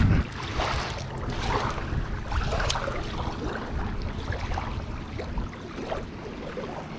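Wind on the microphone and small waves lapping on a concrete ramp, with scattered splashes and handling noises from a landed bass being unhooked in shallow water.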